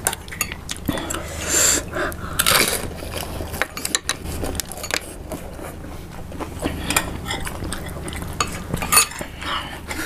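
Metal spoons and forks clinking and scraping against ceramic soup bowls in irregular clicks, the sound of eating soup from a bowl.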